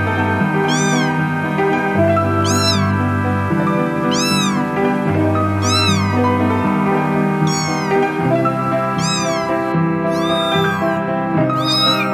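A kitten meowing again and again, high-pitched, roughly every one and a half to two seconds and more often near the end, over background music with sustained chords.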